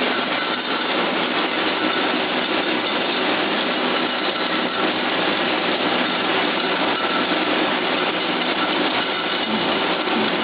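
Sunflower seed microwave roasting machine running: a steady, even machine noise with a faint constant hum.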